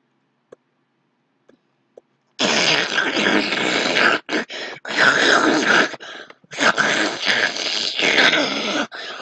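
A few faint mouse clicks, then from about two and a half seconds in loud, rough vocal noises in three long bursts with short breaks. They are eating and gulping noises voiced for the cartoon character.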